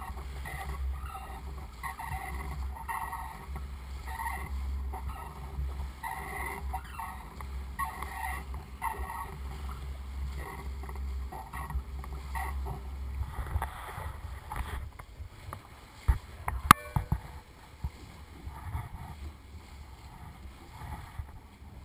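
Water rushing and sloshing at the bow of a sailing boat under motor, in repeated swishes over a low steady hum that fades about two-thirds of the way through. Two sharp knocks come a little past the middle, the second the loudest sound.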